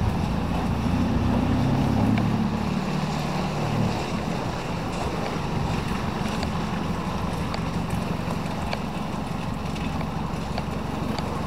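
A songthaew pickup taxi's engine running as it passes close and pulls away, loudest in the first few seconds and then easing, over the steady hiss of traffic on the wet road and wind on the microphone.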